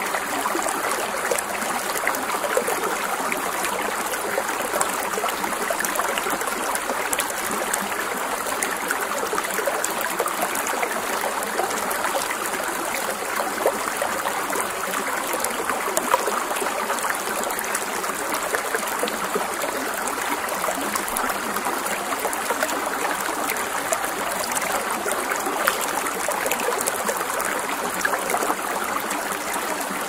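Babbling brook: a small stream's water flowing in a steady, even rush with fine trickling.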